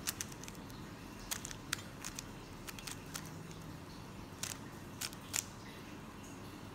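Light plastic clicks and clacks of a stickerless 3x3 speed cube as its layers are turned by hand through an algorithm. The turns come in irregular bursts a few times a second.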